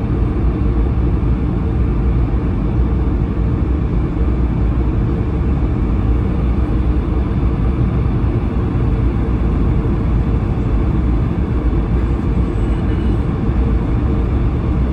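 Steady cabin noise of an Airbus A220-300 in flight: an even, low rumble of airflow and the Pratt & Whitney PW1500G geared turbofan engines.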